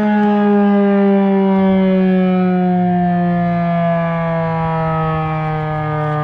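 Fedelcode Model 5 fire siren winding down, its rotor still spinning. Its loud multi-toned wail slides slowly and steadily lower in pitch.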